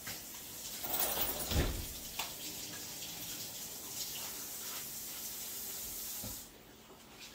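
Kitchen faucet running into the sink, turned on at the start and shut off abruptly about six and a half seconds in, with a thump in the basin a little over a second in.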